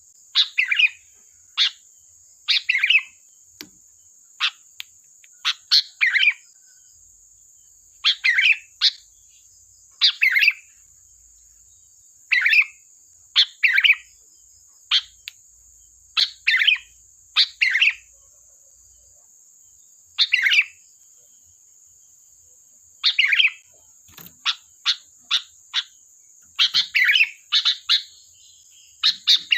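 Sooty-headed bulbul (kutilang) calling: short, clipped chirping phrases repeated every second or two, with a longer pause in the middle and a quicker run of calls near the end. A steady high-pitched hiss runs underneath throughout.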